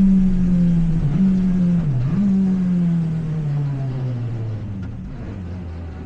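Citroen C2 Super 1600 rally car's 1.6-litre four-cylinder engine heard from the cockpit, its revs falling steadily as the car slows. The pitch dips briefly twice, about one and two seconds in, and the sound fades toward the end.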